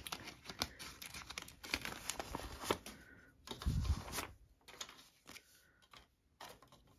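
Paper banknotes rustling and crinkling as they are handled and shuffled, with light irregular crackles throughout and a soft thump about four seconds in.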